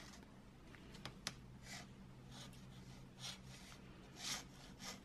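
Faint handling sounds of nitrile-gloved hands pressing and sliding 3D-printed plastic sword-blade sections together at a glued joint: scattered soft rubs and a few light clicks, over a steady low hum.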